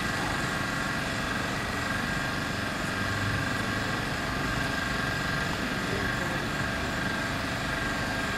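Steady mechanical drone with a constant faint high whine running through it, unchanging throughout.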